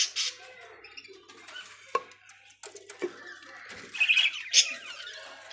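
Budgerigars chirping and squawking, with several sharp clicks and knocks in between.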